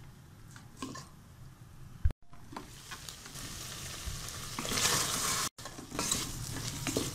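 Wooden spatula stirring and scraping chicken pieces around the non-stick pot of an electric cooker, over a steady sizzle as the sauce cooks down to dry. The sizzle swells about five seconds in, and the sound cuts out briefly twice.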